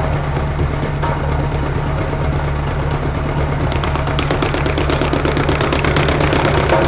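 Angle grinder fitted with a spoon disc running at speed: a steady low drone under dense mechanical noise, with a rapid clatter building from about halfway through.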